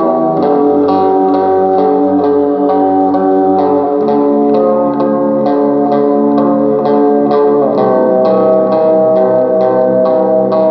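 Music led by guitar, with a bass line and a steady beat.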